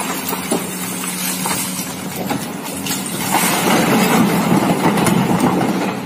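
Komatsu hydraulic excavator's diesel engine running steadily, with rock clattering in the bucket. The clatter grows louder in the second half as the bucket tips its load of rock into a dump truck.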